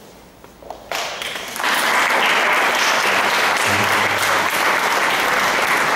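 Audience applauding in a hall: a quiet first second with a few scattered claps, then a full, steady round of clapping from about a second and a half in.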